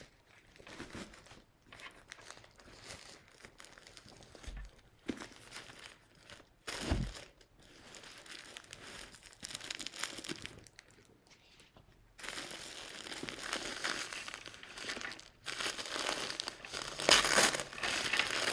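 Rustling and handling as a handbag is slid out of a cotton dust bag, with a couple of soft thumps, then louder paper crinkling from about twelve seconds in as the dark paper wrapped around the bag is pulled open, loudest near the end.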